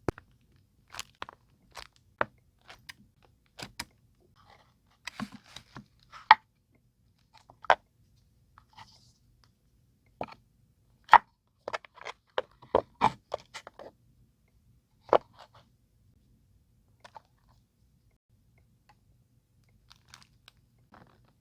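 Desk crafting sounds of paper and stamps being handled: irregular sharp taps and clicks with brief paper rustles, clustered in the first two-thirds and thinning to a few faint touches after about sixteen seconds.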